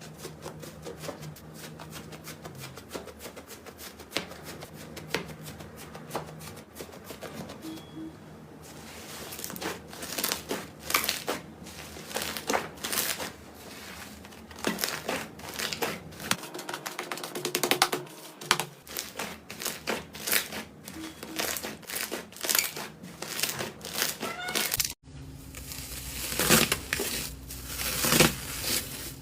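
Slime being squeezed and pressed by hand, giving rapid crackling and popping clicks, sparse at first and denser from about nine seconds in. The sound changes abruptly about 25 seconds in.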